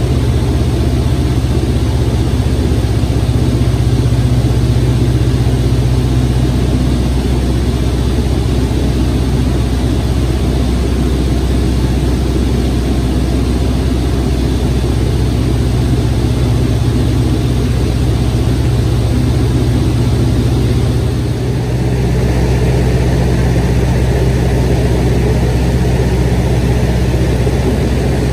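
Propeller airplane's engine running steadily in flight, heard from inside the cabin as a loud, even drone. It dips briefly about three-quarters of the way through, then comes back slightly brighter.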